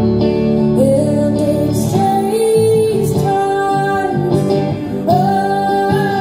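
A woman singing a slow melody into a microphone, holding long notes that waver slightly and slide between pitches, over her own guitar accompaniment.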